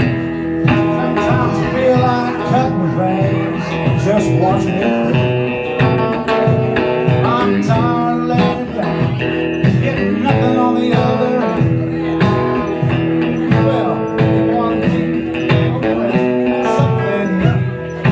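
Live electric and acoustic guitar playing together through a song, with a steady strummed rhythm under a wavering melodic line.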